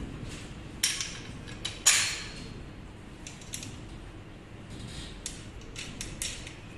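Metal hardware and steel tubing of a foldable pull-up station frame clinking as a bolt is fitted through the crossbar by hand: a scattered series of sharp metallic clicks, the loudest about two seconds in.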